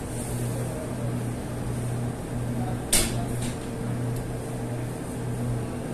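Steady low machine hum with a faint steady tone above it, and a single sharp click or knock about three seconds in.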